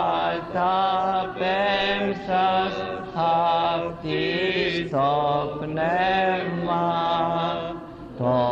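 Orthodox Byzantine chant: a voice sings an ornamented, melismatic melody in short phrases over a steady held drone note (the ison), which shifts pitch only now and then. A brief dip in the singing comes near the end.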